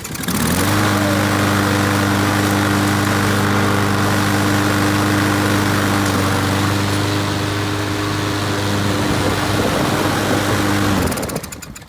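Briggs & Stratton engine on a Husqvarna LC221A self-propelled mower running: it comes up to speed about half a second in, holds a steady pitch, and stops about a second before the end. It is the mower running after a no-start repair.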